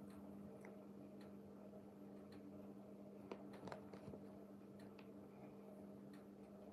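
Near silence: room tone with a faint steady hum and a few soft, scattered clicks.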